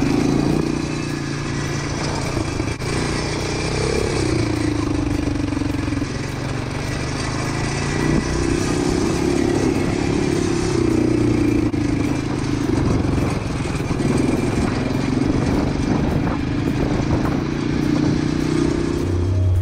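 Quad bike engine running under way on a sandy dirt track, its note rising and falling with the throttle, over a steady rush of wind and tyre noise.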